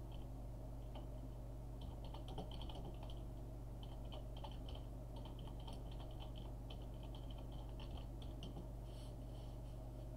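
Computer keyboard keys clicking in short, irregular runs as someone types, with a brief pause about a second in, over a faint, low, steady hum.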